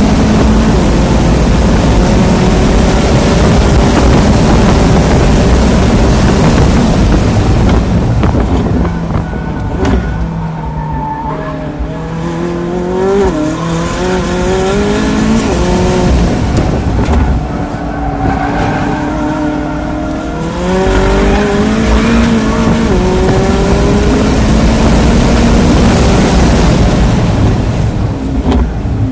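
McLaren 675LT Spider's twin-turbo V8 heard from the open cockpit with heavy wind rush, pulling hard at high speed. About ten seconds in, the engine note drops in steps under braking, then rises and falls through gear changes. From about twenty-one seconds it is pulling hard again, easing off near the end.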